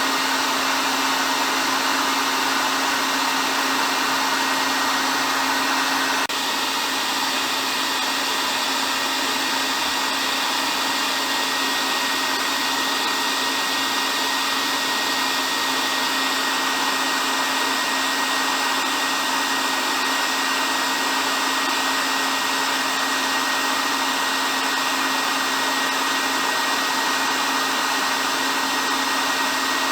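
Hair dryer running continuously: a steady airy rush over a constant motor hum. The level drops slightly about six seconds in.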